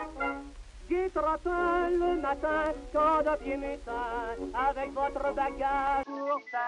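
A man singing a song with a wavering vibrato, from an early gramophone recording, the sound of a Gaumont phonoscène meant to play in sync with the film. About six seconds in it cuts to a different old recording.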